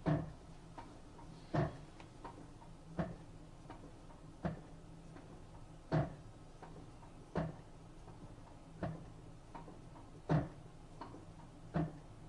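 Panasonic NA-FA80H3 washing machine near the end of its spin cycle, knocking once about every second and a half with fainter clicks in between, over a low steady hum. This is the strange noise the owner questions on a machine less than a year old.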